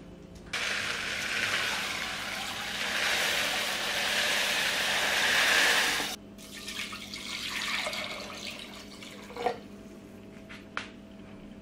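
Water pouring in a steady stream into a glass bowl of rice to soak it, stopping suddenly about six seconds in. Then quieter sloshing in the bowl and a couple of drips near the end.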